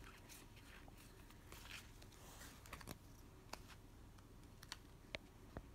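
Faint, scattered clicks and taps of Pokémon trading cards being handled and flipped through by hand.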